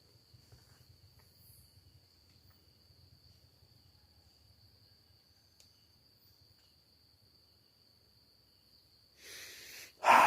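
Insects chirring in one steady, unbroken high trill, faint. Near the end a short, much louder burst of rustling noise.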